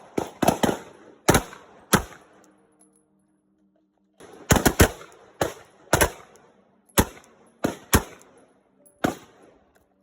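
Pistol shots fired in strings: several quick shots in the first two seconds, then after a short pause a rapid burst followed by single shots spaced about a second apart.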